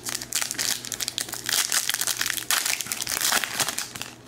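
Foil wrapper of an O-Pee-Chee Platinum hockey card pack being torn open and crinkled by hand, a steady run of crackling and crinkling.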